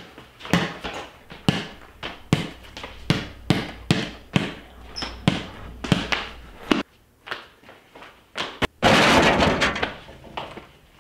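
A basketball dribbled on a hard indoor floor, about two bounces a second. Near the end comes a loud clattering crash lasting about a second as the ball hits a small over-the-door hoop, rattling the door.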